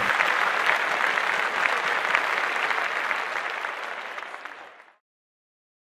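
Audience applauding. The clapping fades away over the last second or so and cuts off suddenly to silence.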